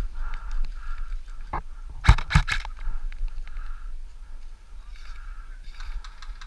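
A quick burst of three or four airsoft gun shots about two seconds in, amid rustling of gear.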